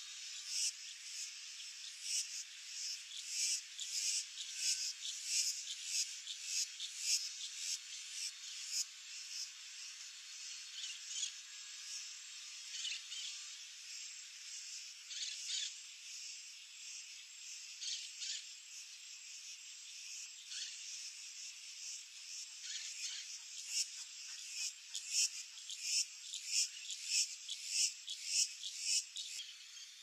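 Steady high-pitched chorus of calling insects, dense rapid chirping pulses several a second, louder in the first few seconds and again near the end.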